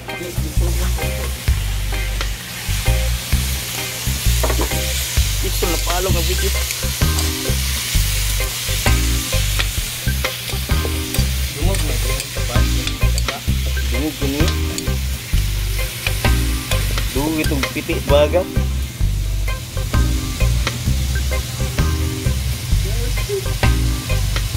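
Jungle snails in their shells sizzling in a metal wok, stirred with a metal ladle. The ladle scrapes and clinks against the pan throughout.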